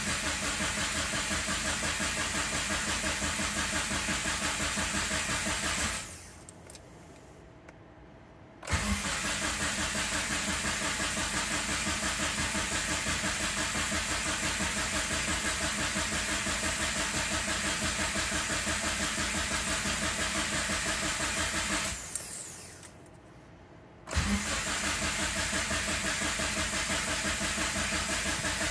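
2015 Subaru Forester's 2.5-litre flat-four cranked on the starter with the accelerator floored so no fuel is injected, priming the oil system: an even, rhythmic cranking that runs in three spells, broken twice by pauses of about two and a half seconds. Each new spell opens with a sharp clunk of the starter engaging.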